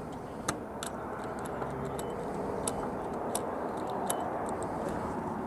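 Gas-pump nozzle clicking irregularly, about a dozen light, sharp clicks, over a steady low hum. The pump is not delivering fuel.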